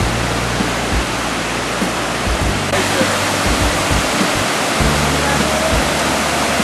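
Water rushing down a waterfall and its cascades over rock ledges, a steady, loud noise that grows brighter about three seconds in. Soft background music with low sustained notes plays underneath.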